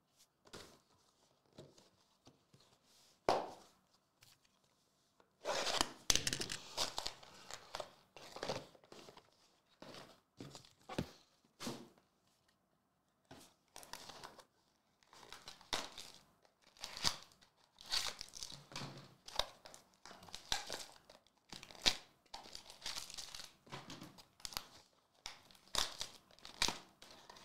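Clear plastic wrap on trading card boxes being torn open and crinkled off by hand, in a long run of short, irregular tearing and crinkling bursts.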